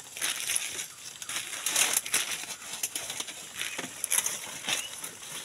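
Irregular rustling and crackling of dry leaves and brush being handled and pushed aside, in short uneven bursts.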